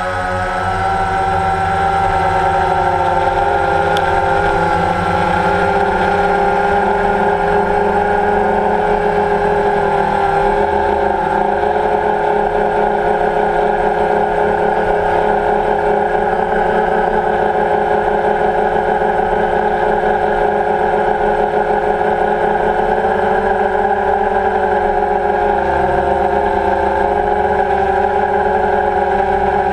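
Motors running steadily: a hum of several steady tones that drift slightly in pitch, over a low rumble.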